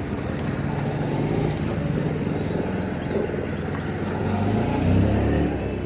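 Road traffic: motor vehicle engines running past close by, with motorcycles among them. The engine sound swells to its loudest about five seconds in as a vehicle passes near.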